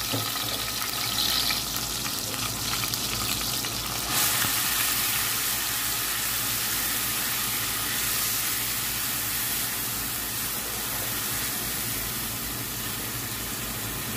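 Onion and garlic paste, machine-ground together, sizzling steadily as it fries in hot oil in a metal pot, stirred with a wooden spoon.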